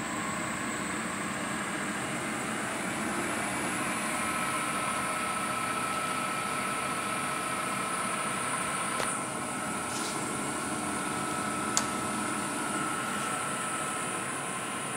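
A steady mechanical hum and hiss, with a thin steady whine coming in about four seconds in and a few light clicks near the middle.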